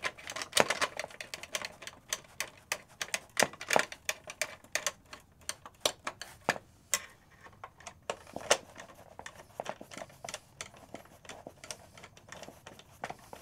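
Irregular metallic clicks and taps of a hand tool tightening the bolts that fix a padded cushion onto a metal wheelchair armrest frame.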